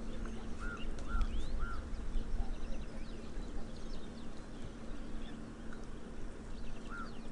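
Birds calling: a run of three short arched notes about a second in, repeated near the end, with many brief high chirps scattered through, over a steady low rumble.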